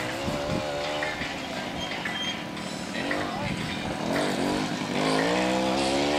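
Mini quad engines buzzing, their pitch rising and falling as the quads speed up and ease off, with more than one quad at once. The loudest rising run comes near the end.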